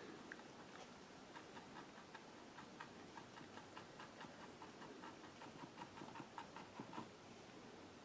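Faint, quick taps of a fan brush's corner dabbed against a canvas, a few a second, stopping about seven seconds in.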